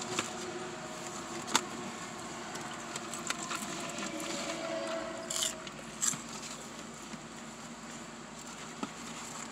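Hand rummaging in a paperboard fried-chicken box: scraping and rustling, with a few sharp clicks and two brief crinkles about five and six seconds in, over a low steady background hum.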